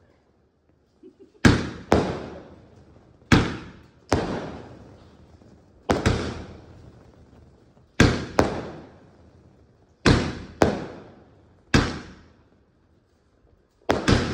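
A Terminator 3 multi-shot sky shot firework cake firing shell after shell. About a dozen sharp bangs come at uneven spacing, some in quick pairs, and each fades in an echo.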